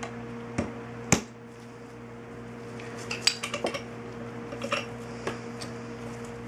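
Steel punch and hand tools clinking against the steel Mosin–Nagant bolt and the bench as they are handled: two sharp metallic clicks about half a second and a second in, then a quick run of small clinks around three seconds in and a few more near five. A steady low electrical hum runs underneath.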